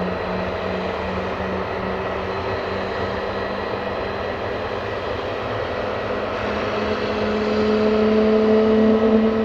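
Airbus A320neo's Pratt & Whitney PW1100G geared turbofan engines running with a steady, pulsing hum and whine. About two-thirds of the way through, the tones climb slightly and the sound grows louder.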